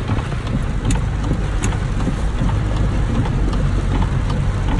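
Vehicle driving with a steady low engine and road rumble, mixed with wind noise on the microphone.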